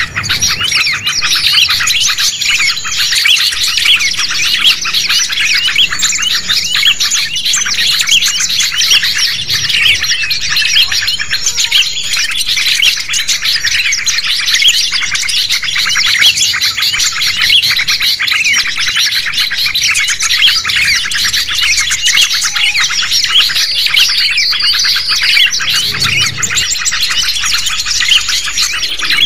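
A dense, unbroken chorus of many small songbirds chirping and calling over one another, high-pitched. It is a layered bird-lure recording (suara pikat) that combines the calls of small birds, played to draw wild birds in.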